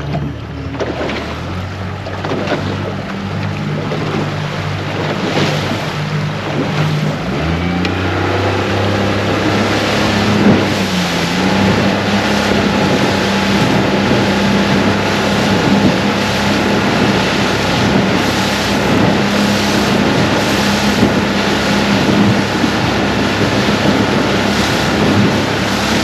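A small boat's outboard motor running, its note rising as the throttle opens about eight seconds in and then holding steady at the higher speed, with water rushing past the hull and wind buffeting the microphone.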